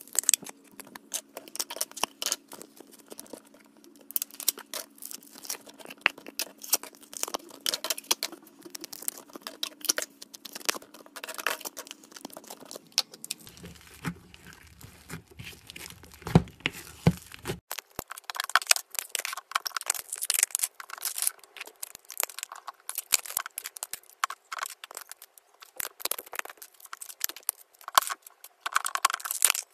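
Slime being squished and stretched by hand: a dense run of wet clicks, crackles and small pops. The steady background under it changes about thirteen seconds in and again about four seconds later.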